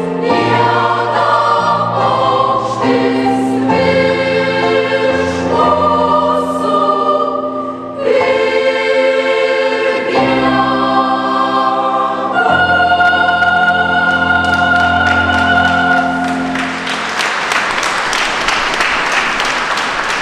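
Mixed choir singing slow, sustained chords in a church, closing on a long held final chord. Applause takes over near the end.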